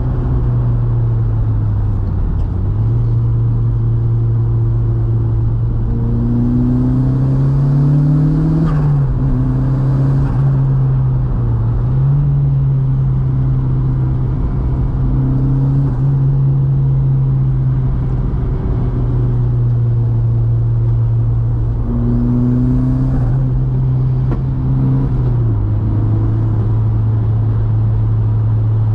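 Volkswagen Mk2's 1.8T turbocharged four-cylinder engine running under load while driving. The revs climb and drop with gear changes, about nine seconds in, again a few seconds later, and near the end.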